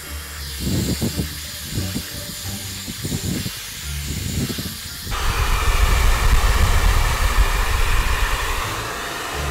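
Hair dryer blowing hot air, with the motor's low hum under the rush of air. About five seconds in it gets suddenly louder and hissier and stays that way.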